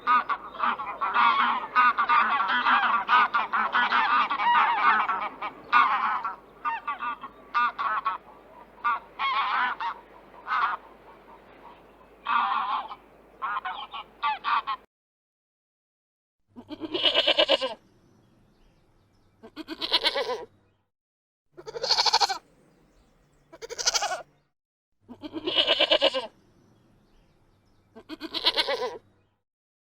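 A flock of geese honking, many calls overlapping. After a cut, a single animal gives six separate calls, each about a second long.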